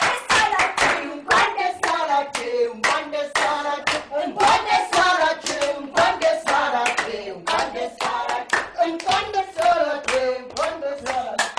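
A group of people clapping their hands in a steady rhythm while voices sing along.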